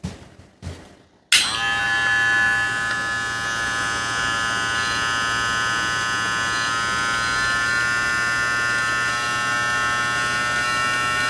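A couple of short clicks, then the Kemei KM-2242 cordless hair clipper's motor is switched on about a second in and runs steadily with a high, even electric whine.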